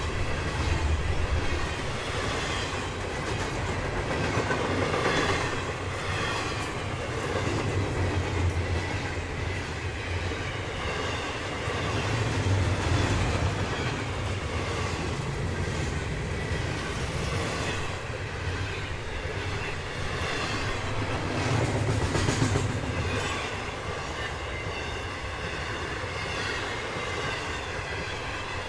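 Florida East Coast Railway freight train's cars rolling steadily past, wheels clicking over the rail joints in a recurring rhythm, with a faint wheel squeal at times.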